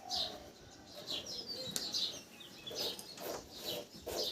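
Small birds chirping in quick, short, high calls, with a single sharp click near the middle.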